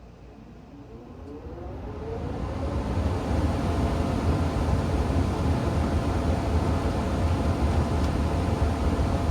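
Furnace blower motor starting up: a rising whine as the blower wheel spins up over about two seconds, then a steady rush of air with a low hum.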